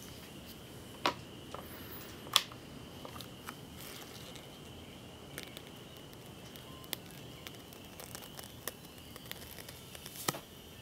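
Self-contained ion-propelled aircraft (ionocraft) running on high voltage: a steady high-pitched whine with faint crackling and a few sharp snaps, the loudest about one and two and a half seconds in and another near the end.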